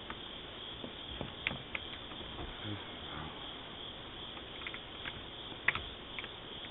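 Steady outdoor hiss picked up by a doorbell camera's microphone, with a few faint clicks, clearest about a second and a half in and near the end.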